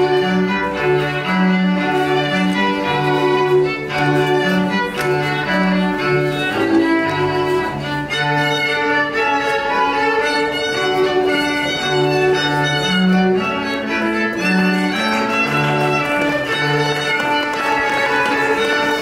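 Instrumental music for a Regency country dance, string-led, with a melody over a bass line moving in steady steps.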